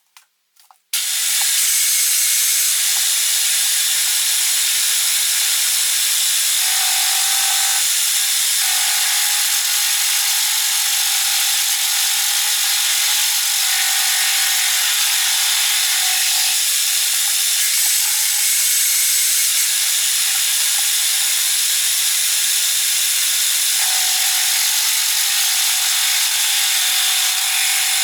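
A 230 mm angle grinder grinding steel: a loud, steady, hissing grind that cuts in suddenly about a second in, with a faint tone that comes and goes as the load changes.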